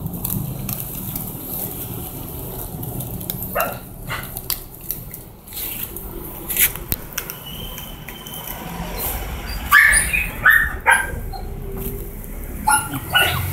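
Three-week-old puppies giving short yelps and whimpers, a run of them near the end, with scattered small clicks and knocks.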